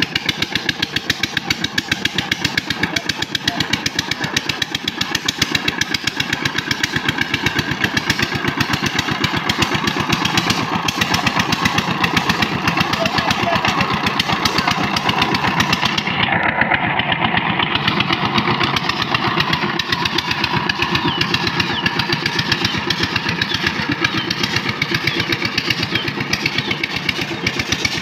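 Single-cylinder diesel engine of a two-wheel power tiller running steadily with a rapid, even chugging while the tiller works through deep paddy mud.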